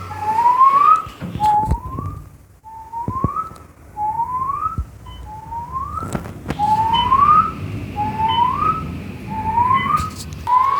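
A whistle-like tone rising in pitch, repeated about once a second, ten times or so, each one the same short upward glide. A few faint knocks sound under it.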